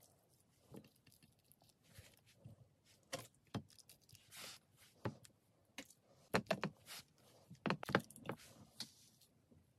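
Scattered soft knocks and clicks with brief rustles: raw chicken thighs and sausages being handled and laid into a ceramic baking dish. The louder knocks cluster in the second half.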